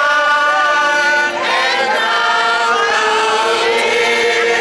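A group of women singing together, holding long notes and moving between phrases.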